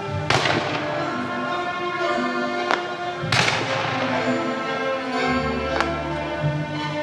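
Firework shells bursting: two big bangs, one just after the start and one about three seconds in, each trailing off in a fading crackle, with two sharper single cracks, one between them and one near the end. Background music with held notes plays throughout.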